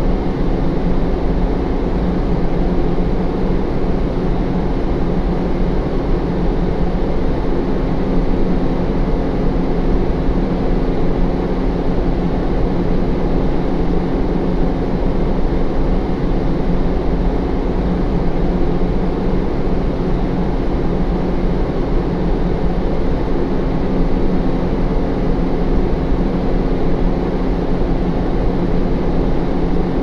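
Steady factory machinery hum: a constant low drone with a noisy wash of machine sound that stays the same throughout.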